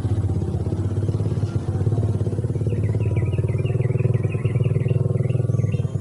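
A small engine running steadily close by, with a fast, even firing pulse.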